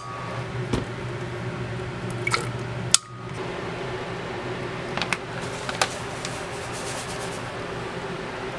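Steady low background hum with a few scattered sharp clicks, briefly dropping out about three seconds in.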